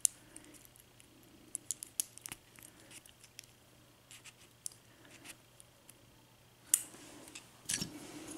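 Small metal lock cylinder and lock tools being handled: scattered light clicks and taps, with a busier stretch of scraping and rattling near the end.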